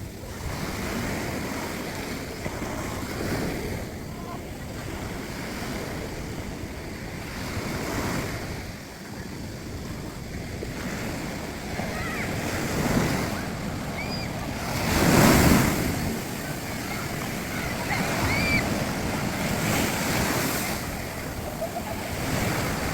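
Rough sea surf breaking on a beach in repeated surges, with wind buffeting the microphone; one wave crashes loudest about fifteen seconds in.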